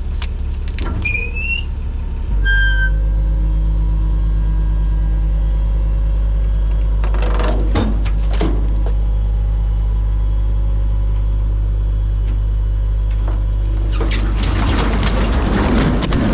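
Skid steer's diesel engine running steadily, throttled up about two seconds in, with short rising squeals early on, a few sharp knocks around the middle and a rushing scrape near the end, as logs are handled for loading.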